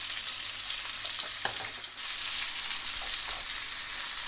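Sliced onions sizzling steadily in hot mustard oil with whole spices in a nonstick frying pan, stirred with a spatula near the end.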